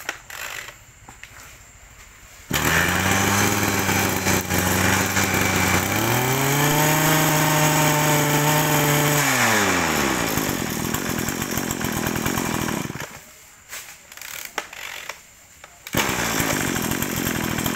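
Kawasaki TH-series two-stroke brush cutter engine catches about two and a half seconds in and idles, is revved up and held high for about three seconds, then falls back to idle. It dies away for a few seconds before running noise returns near the end.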